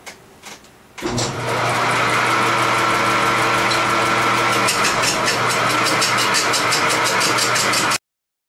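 Turning tool cutting the end of a spinning 13-inch rough log on a wood lathe running at about 317 rpm, with a fast even knocking about five times a second as the tool meets the out-of-true surface once per turn, over the hum of the lathe's drive. It starts about a second in and cuts off suddenly near the end.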